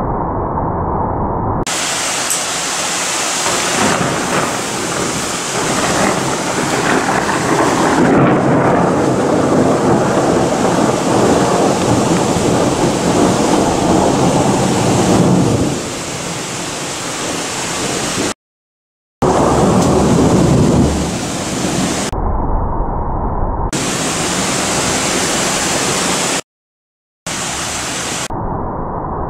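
Heavy rain hissing with long rolling rumbles of thunder, strongest in the middle. The sound drops out briefly to silence twice where clips are joined.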